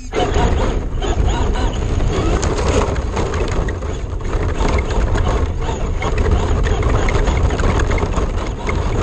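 Onboard sound of a Traxxas RC car driving over gravel: a loud, rough rumble and crunch of the tyres with the chassis rattling, starting suddenly and running steadily.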